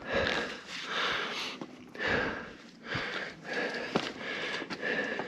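A person breathing hard close to the microphone, in rhythmic breaths about a second apart, with a few sharp clicks between them.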